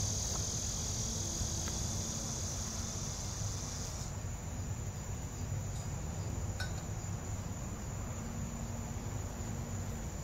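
Steady high-pitched insect chorus that thins to a single steady note about four seconds in.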